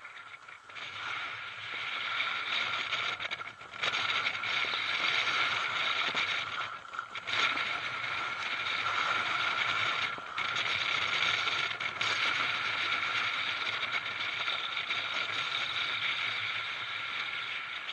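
Steady scraping hiss of edges sliding and carving over firm, groomed snow during a descent, mixed with wind rushing past the microphone; it dips briefly a few times.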